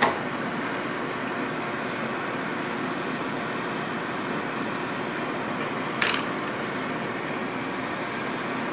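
Bernzomatic handheld propane torch burning with a steady rushing hiss as it heats a fluxed copper pipe fitting that is not yet hot enough to melt the solder. Two brief sharper bursts come through, one at the start and one about six seconds in.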